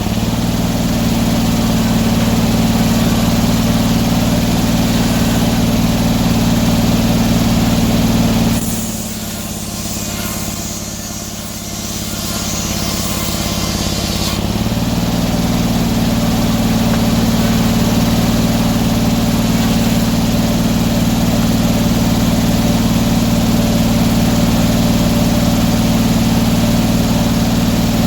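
Sawmill engine running steadily. Its level drops for about six seconds near the middle, then picks back up.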